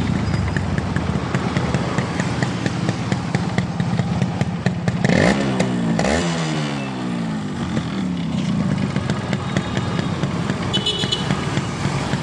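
Yamaha RX100's single-cylinder two-stroke engine idling, with two quick throttle blips about five and six seconds in: the revs rise sharply each time, then fall back to a steady idle.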